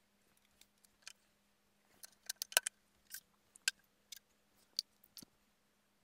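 Scattered sharp clicks and taps from hands working on a Juki TL2010Q sewing machine while it is rethreaded. There are about nine, bunched in the middle and loudest about two and a half seconds in, over a faint steady hum.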